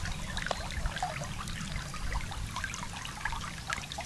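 Water in a shallow creek riffle trickling and burbling over stones, a steady flow dotted with many small plinks and gurgles.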